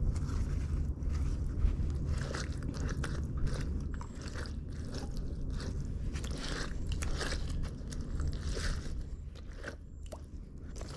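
Irregular scraping and crunching of rusty scrap metal and grit being handled and pulled off a neodymium fishing magnet.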